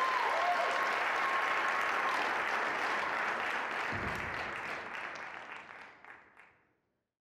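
Theatre audience applauding at the end of a dance performance, the clapping steady at first, then fading away near the end.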